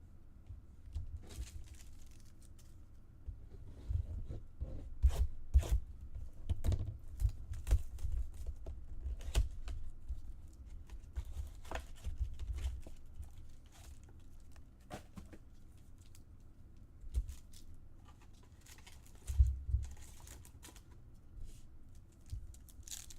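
Trading card packs being opened by hand: wrappers torn and crinkled, with cards handled and a run of sharp taps and low knocks on the table.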